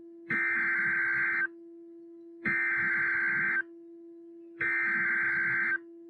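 Emergency Alert System SAME header: three bursts of harsh digital data tones, each about a second long with about a second between them, over a steady low hum. They encode the severe thunderstorm warning that follows.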